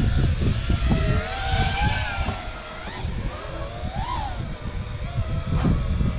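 Racing quadcopter's electric motors and propellers whining, the pitch rising and falling with the throttle and peaking about four seconds in, over heavy wind rumble on the microphone.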